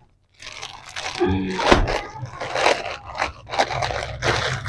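Clear plastic garment packets crinkling and rustling in irregular bursts as folded cotton suits are handled and shifted on a table.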